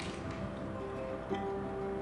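Background music of held, sustained notes.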